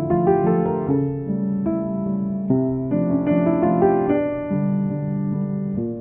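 Background piano music: a gentle melody of sustained notes.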